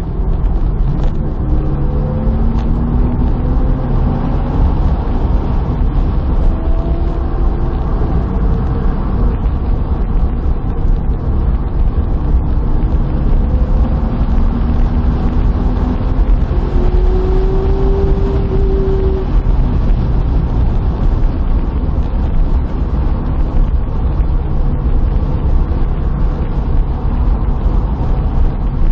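Steady engine and road rumble heard from inside a moving car's cabin. The engine note rises several times as the car accelerates.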